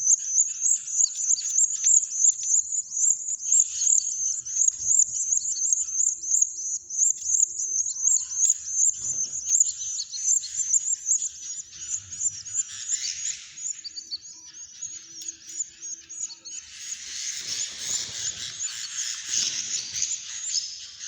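Nestling cage birds cheeping in a rapid, high-pitched, unbroken run of several calls a second, typical of chicks begging. About three-quarters of the way through the calls turn denser and scratchier.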